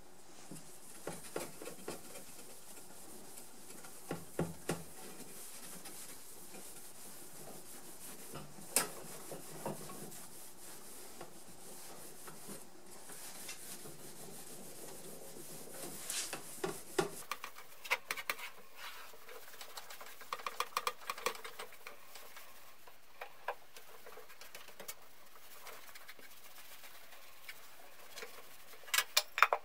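Cloth rag rubbing and buffing paste wax on a steel hand-saw blade: intermittent rustling with scattered small clicks and knocks.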